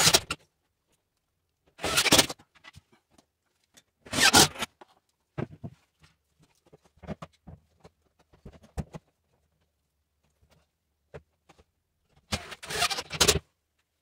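Cordless drill driving screws into a shower's side rail in short bursts of about half a second, four times, with faint clicks and knocks between.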